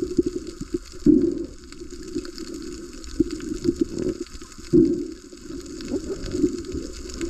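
Muffled underwater water noise heard through an action camera's waterproof housing: irregular gurgling and sloshing, with louder surges about a second in and again near five seconds.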